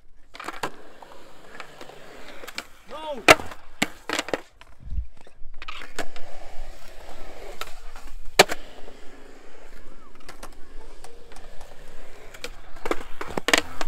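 Skateboard wheels rolling on smooth concrete, broken by several sharp clacks of boards striking the ground, the loudest about three seconds in, about eight seconds in and near the end.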